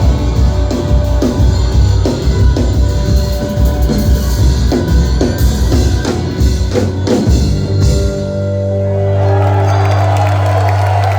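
Live rock band playing the closing bars of a song: drums and bass drive hard, then the drums stop about eight seconds in and a held low note rings on. Near the end the audience starts cheering and whistling.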